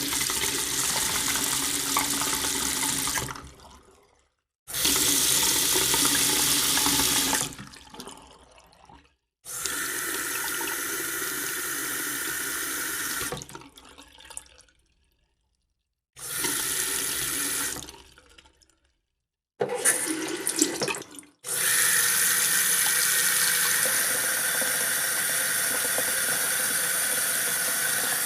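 A sequence of separate water sound effects: running, pouring and filling water, each lasting a few seconds with short silent gaps between them. The last is a steady stream running about seven seconds.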